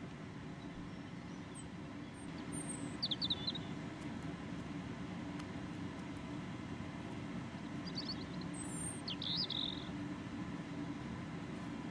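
Steady low background hum, with a few short high chirps in two bunches: about three seconds in, and again around eight to nine and a half seconds in.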